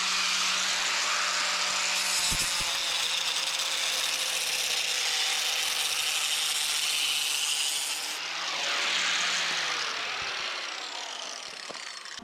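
Electric power saw cutting through a wooden board: the motor starts abruptly and runs under load for about eight seconds, then the trigger is released and the blade spins down with a falling whine that fades near the end.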